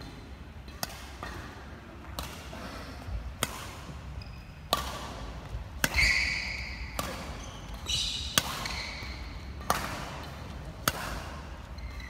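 Badminton rackets striking a shuttlecock back and forth in a rally: a sharp hit about every second and a quarter, echoing in a large hall.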